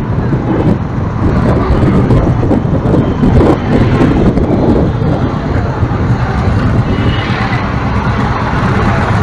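Riding a motorbike through busy town traffic: a steady engine hum under rushing wind noise on the microphone, with the sound of other motorbikes and cars around.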